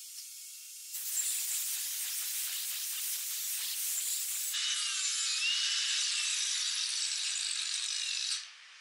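Bauer cordless angle grinder with a flap disc grinding the side of a steel hammerhead clamped in a vise, cleaning up casting blemishes. A steady hiss with a faint whine starts about a second in and stops shortly before the end.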